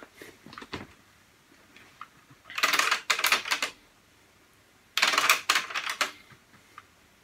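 Two bursts of rapid clicking and clattering, each about a second long, one about two and a half seconds in and one about five seconds in, with a few faint single clicks near the start.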